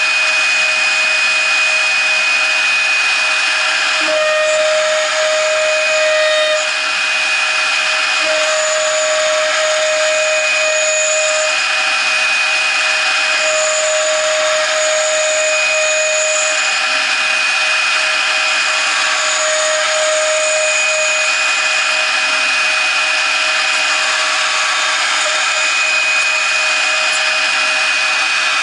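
A 0.75 kW CNC router spindle whines steadily at a high pitch while a 2 mm end mill cuts aluminium angle. A second, lower cutting tone comes and goes in stretches of a few seconds as the cutter works along the part.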